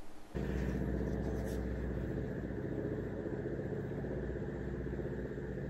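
A steady low, engine-like hum that starts abruptly a moment in and holds level.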